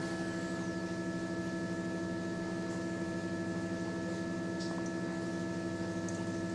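Steady electrical hum made of several constant tones, unchanging throughout.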